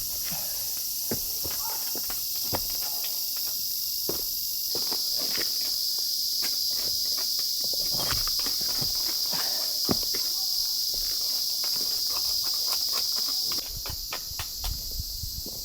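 A steady, high-pitched summer insect chorus, with scattered light knocks and scrapes as bricks are handled and set down on a sand bed. The insect sound steps up about five seconds in and drops again near the end.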